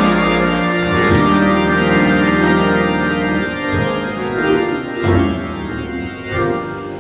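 Organ playing sustained chords that thin out and fade toward the end.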